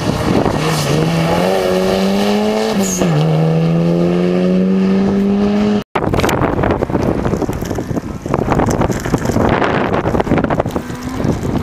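Rally car engine under hard acceleration, its pitch climbing, with one upshift about three seconds in before it climbs again. The sound cuts off abruptly about six seconds in, and wind buffets the microphone for the rest.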